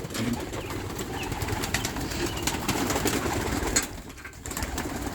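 Pigeons in a loft cooing together as a continuous low murmur, with scattered light clicks and taps. It drops quieter about four seconds in.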